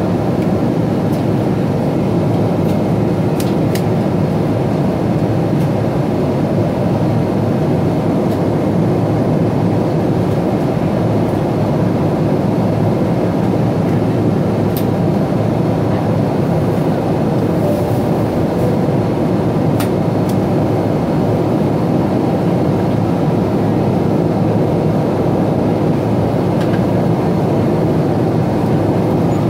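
Steady cabin noise of a Boeing 777-200ER in flight: a loud, even rush of airflow and engines, with a few faint clicks.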